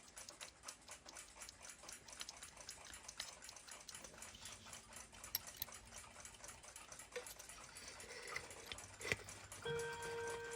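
Balance-wheel movement of a 1940s German flip clock ticking quickly and evenly, freshly cleaned and oiled, with a few louder single clicks as it is handled into its case. Music comes in near the end.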